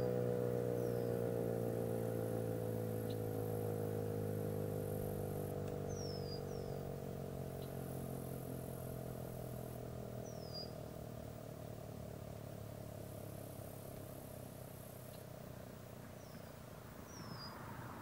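ACA P-10 single-tone rotating warning siren winding down at the end of a test, its steady tone slowly falling in pitch and fading away while the horn keeps turning.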